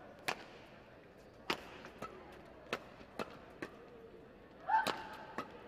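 Badminton racket strings striking a shuttlecock in a fast doubles rally: a string of sharp, crisp hits every half second to a second, the loudest about five seconds in with a short high sound alongside it.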